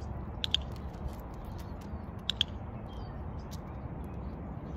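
Two quick pairs of light metallic clinks, about two seconds apart, from the dogs' leash clips and harness hardware, over a steady low rumble.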